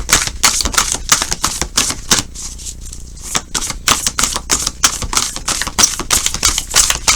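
A tarot deck being shuffled by hand: a fast, uneven run of card clicks and slaps, thinning out briefly about two to three seconds in.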